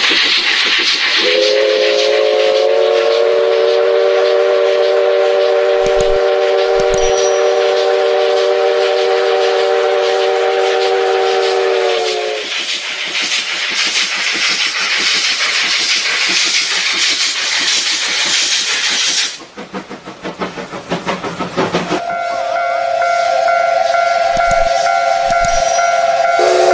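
Steam locomotive chime whistle blowing one long chord of several notes for about ten seconds over a steady rush of steam and train noise. After a break in the sound, a second whistle chord at a different pitch starts a few seconds before the end and holds.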